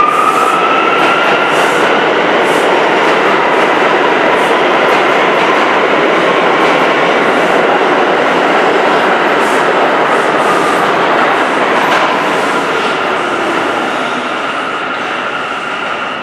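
R179 subway train accelerating out of a station: a rising propulsion-motor whine over loud, steady wheel-and-rail noise with repeated clicks at rail joints. The sound fades over the last few seconds as the final cars pass.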